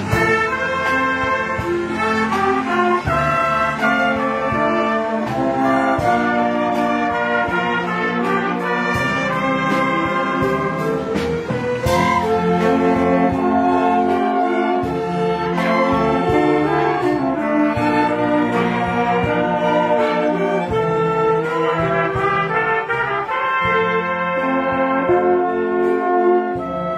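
A student orchestra playing a piece continuously, with brass instruments prominent over the strings.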